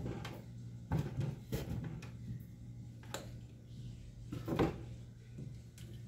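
Cardboard milk cartons being set down and shifted in a clear plastic organizer bin on a wooden tabletop: a few separate knocks and taps, the loudest about four and a half seconds in, over a low steady hum.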